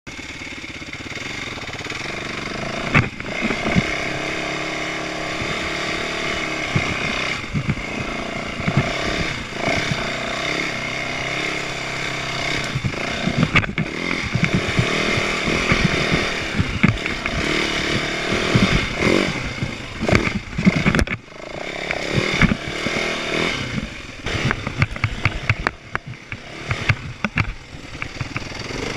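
A small petrol engine running steadily for the whole stretch, with many short knocks and clattering sounds over it.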